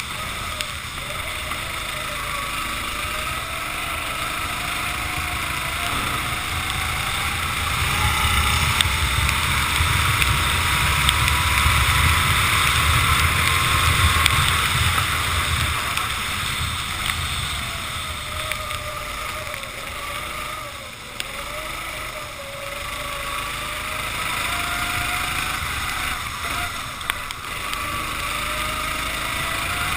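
Racing kart engine heard onboard, its pitch climbing steadily on the straights and dropping off into the corners. Wind and wet-track spray noise on the microphone hiss underneath, with the loudest stretch a little after a quarter of the way in.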